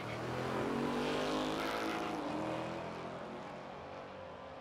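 Car engine revving and running on, its pitch shifting about two seconds in, then slowly fading away.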